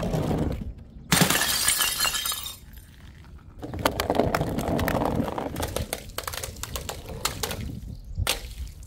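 Glass shattering twice: a sudden crash about a second in and another near four seconds in, each followed by shards clinking and scattering, with one more short sharp crack near the end.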